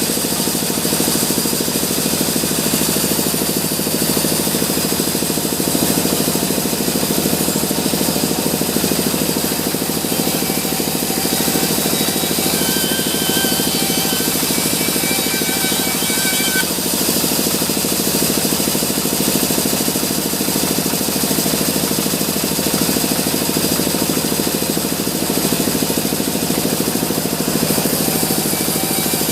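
Sawmill sawing machinery running steadily, a loud, continuous mechanical din with no break.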